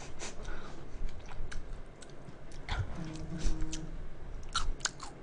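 Fried tempura flakes from a Nongshim Big Tempura Udon cup noodle being chewed: a run of short, irregular crunches. The flakes are still crisp after soaking in hot broth.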